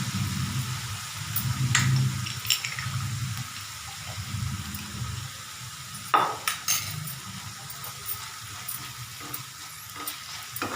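Spoon stirring a wet batter mixture in a bowl, a soft squelching churn with a few sharp clinks of the spoon against the dish, the clinks strongest about six seconds in.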